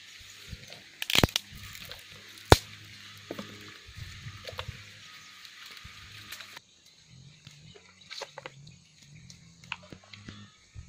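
Dry twigs of a small stick fire crackling and snapping, with two sharp cracks about one and two and a half seconds in and lighter crackles and rustling around them. A steady hiss cuts off abruptly about two-thirds of the way through.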